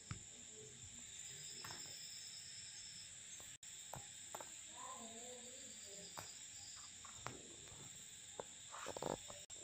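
Faint, steady chirring of night insects, crickets, with scattered light clicks and taps of a puppy's claws and nose on a tiled floor.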